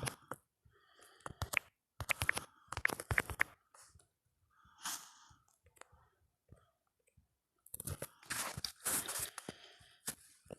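Phone keyboard typing sounds: irregular short taps and clicks in quick clusters, with short pauses between them.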